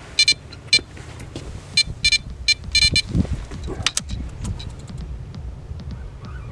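Electronic carp bite alarm beeping in quick irregular bursts over the first three seconds, the sign of line being pulled off: a fish taking the bait. Wind rumbles on the microphone.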